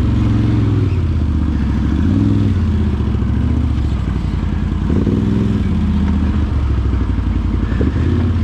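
Can-Am Outlander 850XT ATV's Rotax V-twin engine running under throttle, its pitch rising and falling several times as the throttle is opened and eased off.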